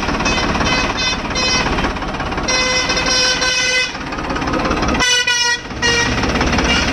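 Farmtrac 60 tractor's diesel engine running, with a loud horn sounding a string of held notes of changing pitch over it and a brief break a little after five seconds in.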